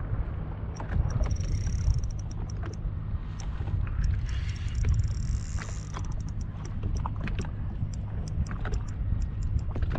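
Spinning fishing reel being cranked against a hooked fish, with runs of rapid high clicks and two short stretches of a steady high whir, over a constant low rumble of wind and water.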